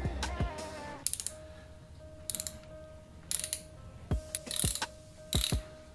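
Hand ratchet clicking in about five short bursts of rapid clicks as it works the exhaust manifold studs out of the cylinder head.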